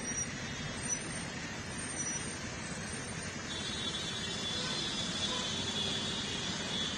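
Steady engine and street-traffic noise, with a faint high whine joining in about halfway through.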